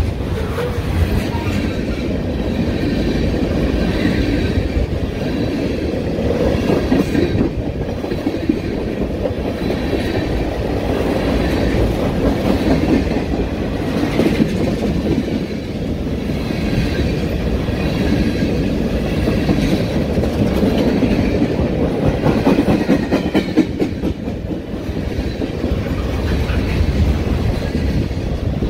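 A freight train of tank cars, lumber flatcars and covered hoppers rolling steadily past close by: a loud, continuous rumble and clatter of steel wheels on the rails.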